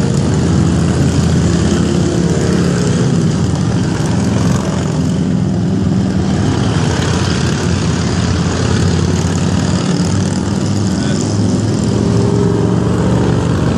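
A group of cruiser and touring motorcycles riding past one after another. Their engines run continuously, overlapping and shifting in pitch as each bike passes.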